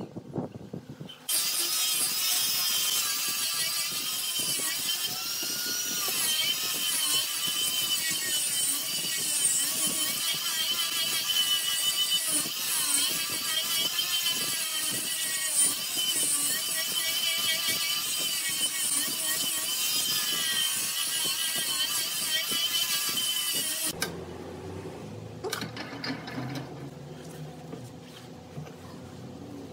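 Angle grinder with a sanding drum running against the carved wooden rim of a vase, its high whine wavering as the pressure on the wood changes. It starts about a second in and stops with about six seconds left, followed by quieter clicks and knocks as the vase is taken off the lathe.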